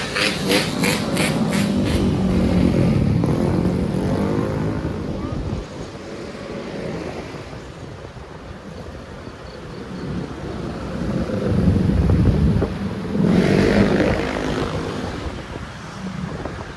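Road traffic engine noise, with the engines swelling loudest a couple of seconds in and again around twelve to fourteen seconds in, where an engine revs up.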